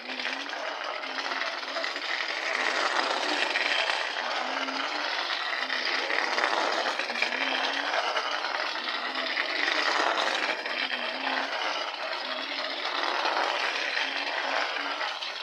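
Homemade tin-and-wire toy truck rattling and scraping as it rolls over brick paving, a dense clattering that swells and eases every few seconds.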